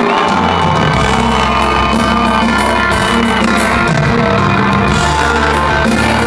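Live rock band playing loud: drums with regular cymbal strokes, bass and electric guitar, with a high held tone for about the first three seconds.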